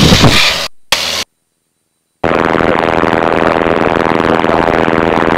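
Piper Cherokee's piston engine at full takeoff power during the takeoff roll: a steady, buzzy drone with many even overtones. The feed cuts out completely for about a second near the start before the drone comes back.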